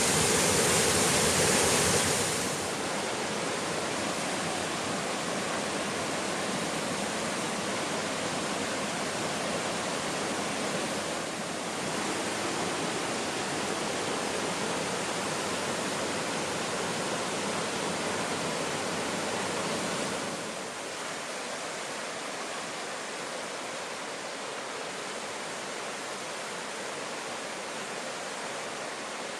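Rushing water of a mountain waterfall: a steady, dense roar of falling water that drops in level twice, about two seconds in and again about twenty seconds in.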